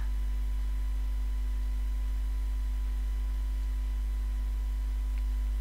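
Steady low electrical hum with a faint hiss and no other sound.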